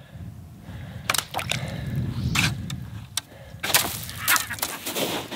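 A string of about eight irregular sharp clicks and crunches, the last few coming closer together, over a low rumble.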